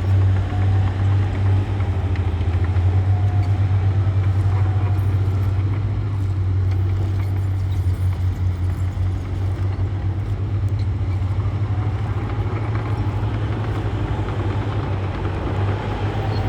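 Diesel engine of heavy earthmoving machinery running steadily with a low, pulsing drone, and faint higher whines that drift up and down above it.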